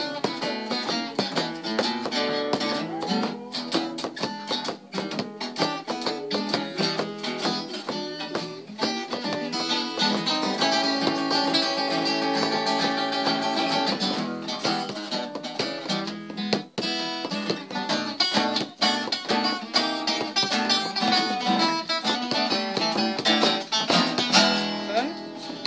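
Two acoustic guitars playing an instrumental blues passage, with strummed chords and quick picked notes.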